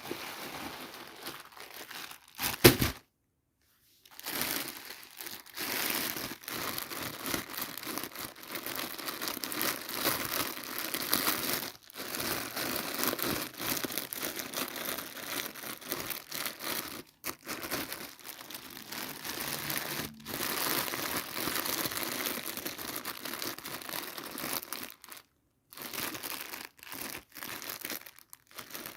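Packaging crinkling and tearing as a doll set is unboxed, with one loud sharp knock about three seconds in.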